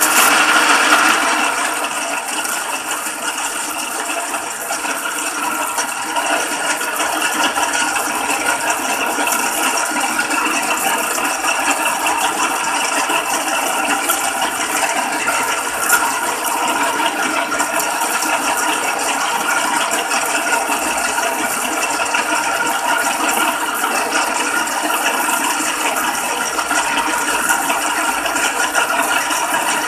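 Small metal lathe running steadily with a rattling gear whir as it turns the aluminium wall of a PENN 950 SSm fishing-reel spool, with the cutting tool skimming off salt corrosion. The sound starts suddenly, and there is one brief louder knock about halfway through.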